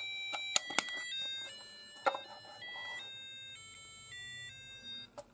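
A colour-changing mood clock's small speaker playing a tinny electronic beep melody, the notes stepping up and down several times a second and stopping about five seconds in; the clock is running on its newly fitted batteries. A few sharp plastic clicks from the clock being handled come in the first second.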